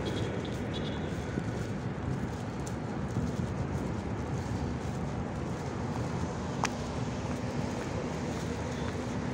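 Steady city traffic noise from a busy road, heard outdoors, with one sharp click about two-thirds of the way through.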